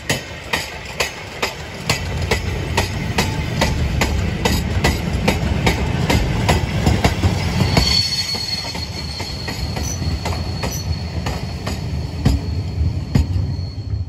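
Goods wagons rolling past, their wheels clicking over the rail joints in a quick, steady run over a heavy low rumble. From about halfway a thin, high wheel squeal joins in as the last wagons and the brake van go by.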